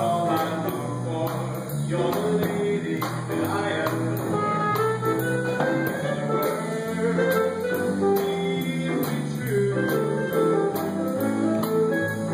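A small jazz band playing a jazz standard live, with melody notes over a bass line and a steady light beat.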